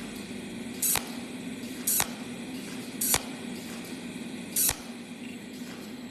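Cold welding machine firing individual weld pulses on copper-to-stainless lap welds: four short hissing bursts, one to one and a half seconds apart, over the machine's steady low hum.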